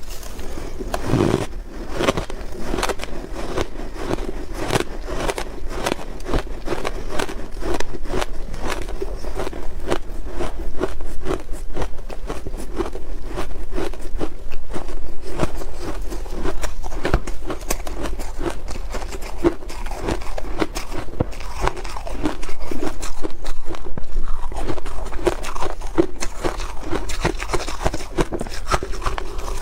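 A person biting and chewing hard ice: a dense, rapid run of crunches and cracks.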